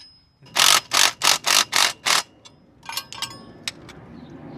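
12-volt cordless impact driver hammering a bolt home in short pulses of the trigger, about six bursts in quick succession, driving the bolt tight. A few light clicks follow about three seconds in.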